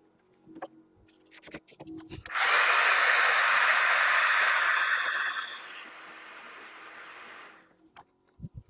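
Hot-air gun blowing with a steady rush of air. It starts suddenly after a few small handling clicks, drops after about three seconds and then fades out as the fan runs down.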